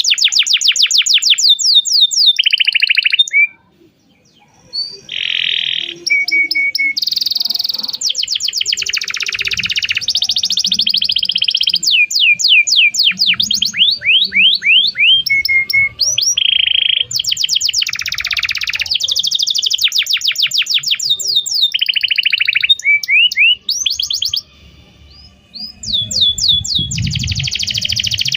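Domestic canary singing a long, fast song: rapid trills of repeated rising notes, one phrase running into the next, broken by two short pauses, one about four seconds in and one near the end.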